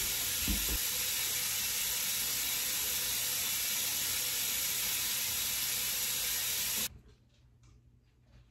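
Bathroom sink tap running in a steady hiss during face washing, then shut off suddenly about seven seconds in.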